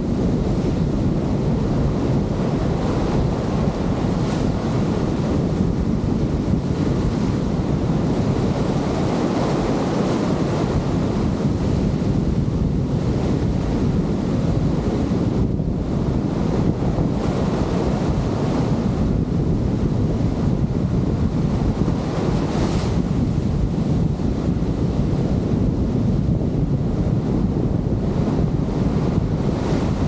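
Large breaking waves and churning surf right at the microphone, with steady wind buffeting the microphone.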